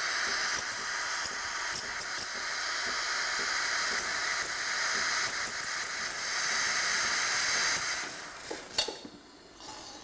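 Sage Barista Express steam wand hissing steadily as steam flows. About eight seconds in the steam is shut off, with a few sharp clicks as it stops.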